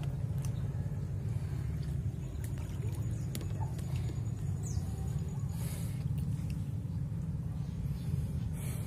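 A steady low rumble with a few faint chirps, and near the end a short splash of hands working through shallow water.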